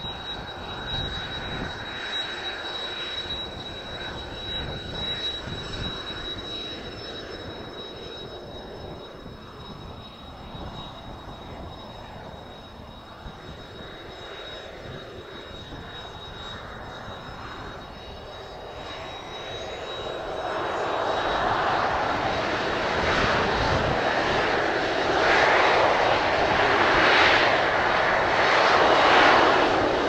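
Kawasaki T-4 trainer's twin turbofan engines whining steadily at low power, then about two-thirds of the way in the whine rises in pitch and the engines spool up to takeoff thrust, the sound growing steadily louder to the end. Strong wind buffets the microphone throughout.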